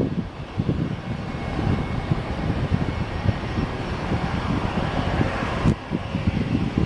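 Boeing 737-800's CFM56-7B jet engines at takeoff thrust: a continuous rushing jet noise that swells in the middle, over an uneven low rumble.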